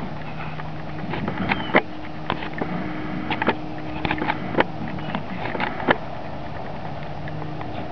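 Steady low drone of an airplane engine overhead. Over it come scattered light crackles and snaps as puppies' paws step on dry wood chips and twigs.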